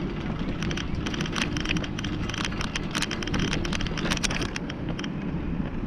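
Wind rumbling on the microphone of a bicycle-mounted camera while riding, with dense, irregular crackling clicks from the bike and path over it that thin out near the end.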